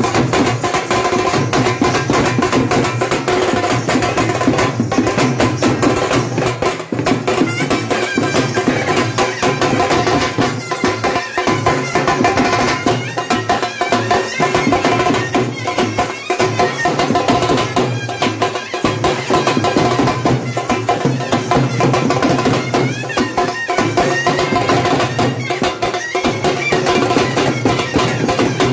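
Veeragase folk-dance drumming: hand drums beaten in a fast, continuous rhythm with sharp, clicking strokes over a steady droning tone.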